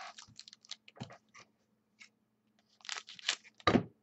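Trading cards and card-pack wrappers being handled: scattered short crinkles and rustles, with a louder cluster of them about three seconds in.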